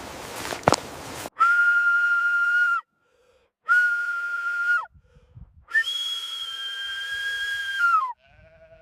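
A few footsteps, then three long, steady whistled notes at one pitch, each dipping in pitch as it ends. The third note is the longest.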